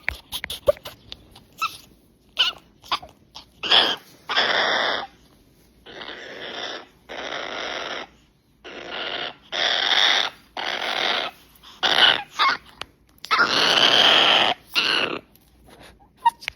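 A parrot giving a series of harsh, raspy screeches, about a dozen in all, each lasting from a fraction of a second to over a second, with short pauses between them.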